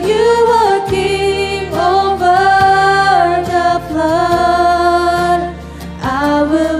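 Slow worship music: a held, gliding melodic line over sustained low chords, with no words.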